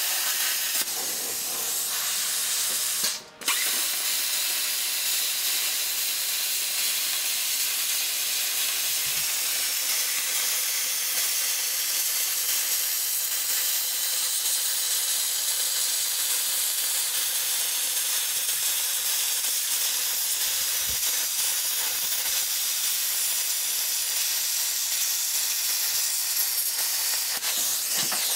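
Electric arc welding on a motorcycle gas tank: a steady hiss from the welding arc, which cuts out briefly about three seconds in. A low steady hum joins from about nine seconds in.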